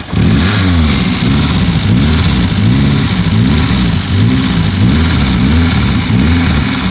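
Nissan 240SX engine running just after a restart from nine years of sitting, revved up and down in repeated throttle blips about once a second. It is kept running on the throttle because it won't hold an idle yet.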